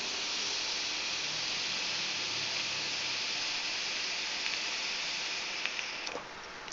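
A long lung drag on a sub-ohm e-cigarette atomizer with a 0.5-ohm coil and large airflow holes: a steady hiss of air rushing through the airflow holes over the firing coil, which stops about six seconds in.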